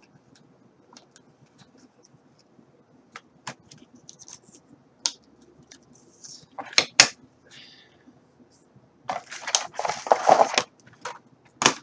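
Plastic toy parts and packaging being handled on a tabletop: scattered clicks and taps, two sharp clicks about seven seconds in, then a louder rustling scrape of the plastic packaging tray from about nine seconds in that lasts over a second.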